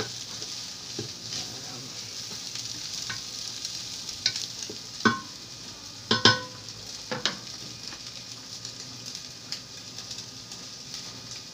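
Chicken liver and gizzards sizzling as they sauté in a pan, with a steady hiss. A cooking utensil scrapes and clanks against the pan a few times around the middle, the loudest clank ringing briefly.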